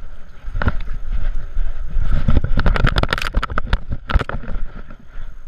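Knocks, scrapes and rubbing on a camera strapped to a dog's back harness as the dog moves, in a dense irregular run that is thickest from about two to four seconds in.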